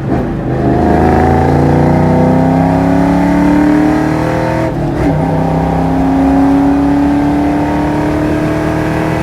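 Car engine accelerating hard, its pitch climbing steadily. About five seconds in there is a brief break for an upshift, and then it climbs again.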